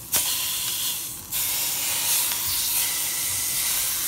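Beef roast searing in a stainless steel pot, sizzling loudly in its own fat with little oil. The sizzle dips briefly about a second in and surges again as the meat is moved against the hot pot.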